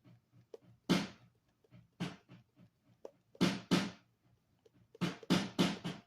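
Electronic drum-kit samples triggered by tapping the pads of a Donner Starrypad MIDI controller: single hits, including a snare-like kick, at an irregular pace and bunching into quicker runs near the end. The hits come out at very uneven loudness, a sign that the pad velocity response is not yet set up.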